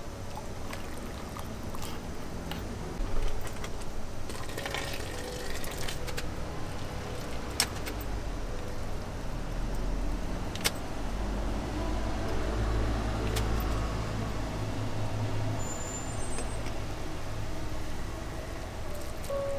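A road vehicle passing close by, its low engine rumble swelling toward the middle and fading again. There are a few sharp metal knocks from the ramen stall's utensils, one of them as the noodle strainer is worked over the pot.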